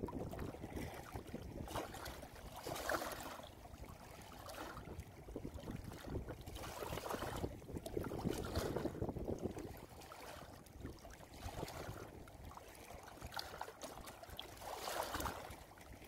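Shallow stream flowing and gurgling over rocks, rising and falling in uneven swells, with a low rumble underneath.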